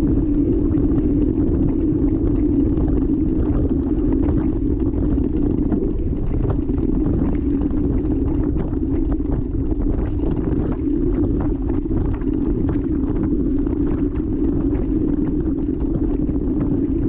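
Steady, muffled rumble of wind and rolling noise on a bike-mounted action camera as mountain bikes ride over a dirt track, with frequent small clicks and rattles from bumps in the track.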